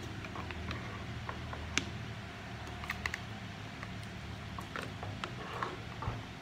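Scattered light clicks and taps of a small plastic spoon and a metal spoon against plastic bowls of rice, over a steady low hum.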